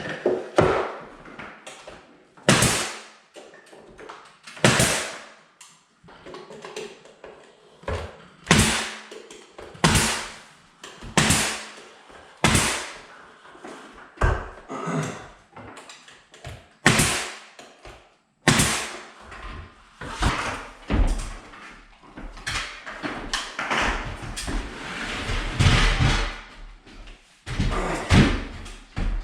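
Crown molding being nailed up: a string of sharp single bangs at uneven intervals of one to two seconds, a dozen or more in all.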